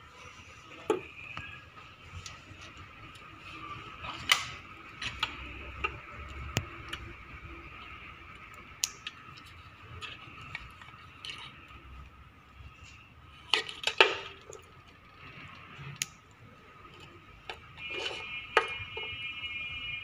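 Small plastic wire connectors clicking and rattling as they are handled and plugged together in a scooter's wiring harness: scattered sharp clicks, with a cluster of them about two thirds of the way through. A steady faint high whine runs underneath, and a pitched buzzing tone sounds for the last two seconds.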